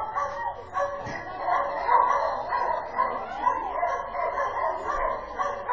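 Dogs barking and yipping over and over, the calls overlapping, with voices faint beneath them.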